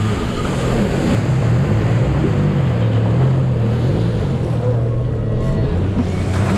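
Personal watercraft engine running under way, its pitch rising and falling with the throttle, over a steady rush of wind and water.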